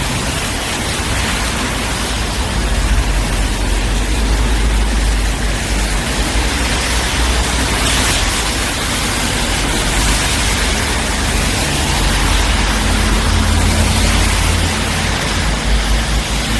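Cars driving on a rain-wet road: a steady hiss of tyres on the wet surface over a low engine rumble, swelling as vehicles pass, about eight seconds in and again near the end.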